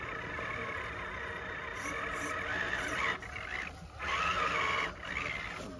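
RC rock crawler's electric motor and gear drivetrain whining under throttle, cutting out briefly about three seconds in and again near the end as the throttle is let off.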